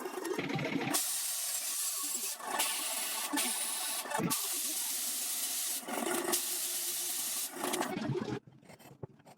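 Metalworking tool noise: a steady hiss that runs in several stretches with brief breaks between them, then stops near the end.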